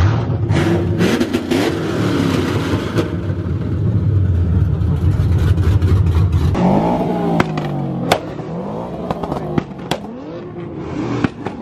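Loud car engine running with a heavy low drone for about six seconds, then revving up and down again and again, with several sharp cracks in the later half.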